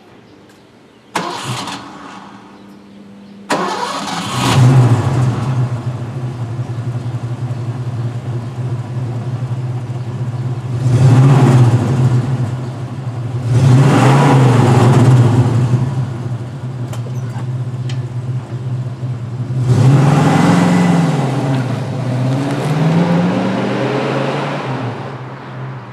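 Exhaust of a 1985 Ford Mustang's carbureted 5.0 L V8, running through catalytic converters and Flowmaster Super 44 mufflers. The engine starts about three and a half seconds in, settles to a steady idle, and is revved several times, twice in quick succession near the end.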